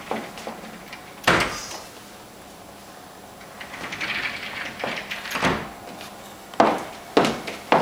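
Sliding wardrobe door rolling along its track and knocking against its stops: a loud knock about a second in, another stretch of rolling then a thump, and several sharp knocks near the end.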